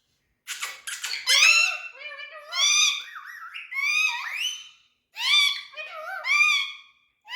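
Indian ringneck parrot giving a run of high-pitched, squeaky talking-like calls in several short phrases, with the pitch sliding up and down and a short pause about five seconds in.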